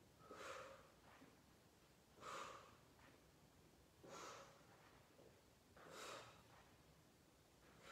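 A person breathing out hard in short puffs with the effort of exercise repetitions, four breaths about two seconds apart.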